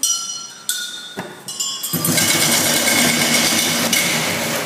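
Glass bottles hanging in a rack, struck one at a time to play notes: each gives a clear ringing tone that dies away, about half a second to a second apart. About two seconds in, a loud rushing noise drowns out the notes and stops near the end.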